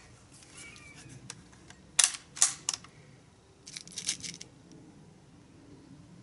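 Air rifle, a Crosman Legacy 1000, being picked up and handled: three sharp clacks about two seconds in, then a quick run of smaller clicks about a second later.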